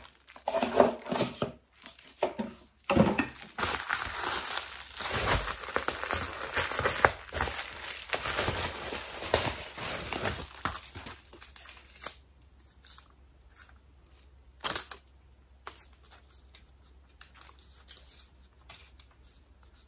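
Plastic bubble wrap being unwrapped and crumpled by hand: a dense crinkling rustle for about twelve seconds. Then it goes quieter, with a few scattered clicks and one sharper knock.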